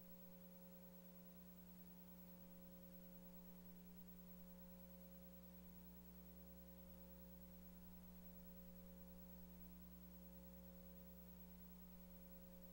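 Near silence: only a faint, steady electrical hum with no other sound.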